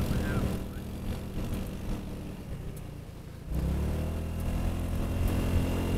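Honda Helix scooter's 250 cc single-cylinder engine under way. It eases off about half a second in, then the throttle opens again about three and a half seconds in and the engine note comes up louder and rises in pitch.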